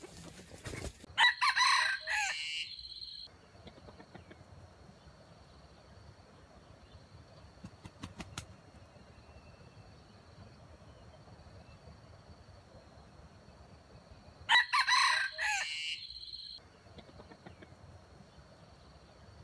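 Wild junglefowl rooster crowing twice: one short crow about a second in and another about fifteen seconds in.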